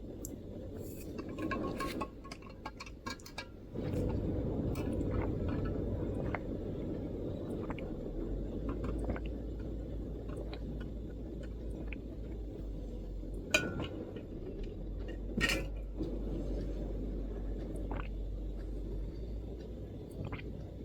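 MacBook keyboard keystrokes: a quick run of taps in the first few seconds, then scattered single clicks, two of them sharper. Under them runs a steady low background rumble that grows louder about four seconds in.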